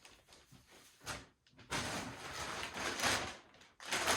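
Scraping and rubbing of plastic cooling-fan and shroud parts being handled, in one long stretch and a second shorter one near the end.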